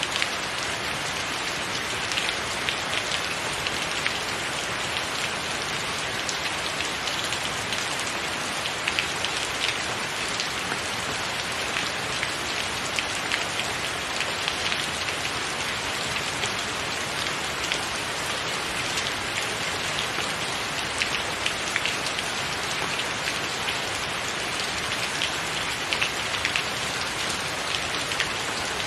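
Steady rain falling on a tiled roof: a dense, even hiss with many individual drops ticking sharply on top.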